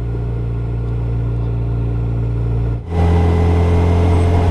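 Yamaha FJR1300 motorcycle's inline-four engine running at a steady cruising pitch, heard from the rider's seat. About three seconds in it cuts abruptly to a louder stretch with much more wind and road noise over a stronger steady engine hum.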